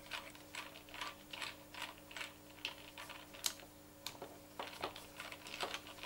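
Small screw being driven by hand with a screwdriver into a two-part metal lever-lock spindle: a run of light, irregular clicks, a few each second.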